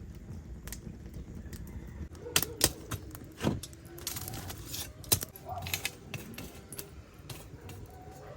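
Irregular sharp clicks and clattering knocks, the loudest few about two and a half, three and a half and five seconds in.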